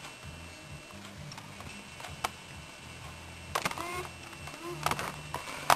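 A few sharp clicks of buttons being pressed and the body being handled on a JVC mini DV camcorder, over a low, uneven hum. The clicks come about two seconds in and again between about three and a half and five seconds.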